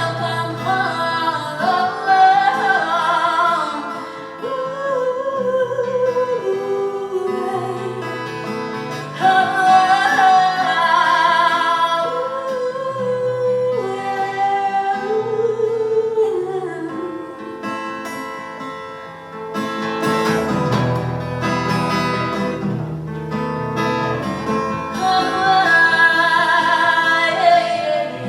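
Live song: a singer holding drawn-out notes over guitar accompaniment, with a short instrumental guitar passage about two-thirds of the way through before the voice comes back.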